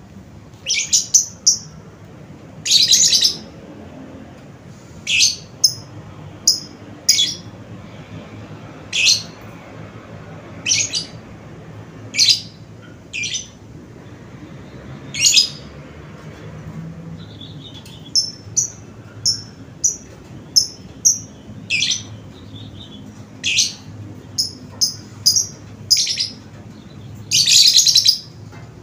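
A bird chirping: short, high calls at irregular intervals, some in quick runs of three or four, over a faint steady low hum.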